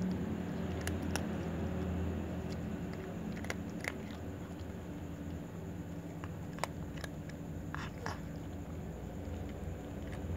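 A cat chewing dry kibble: irregular crisp crunches and clicks as it bites the pellets, over a steady low hum.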